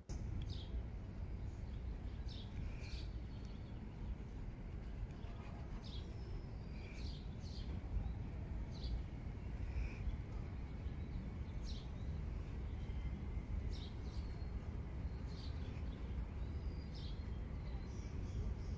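Birds giving short, high chirps every second or so over a steady low rumble of outdoor background noise.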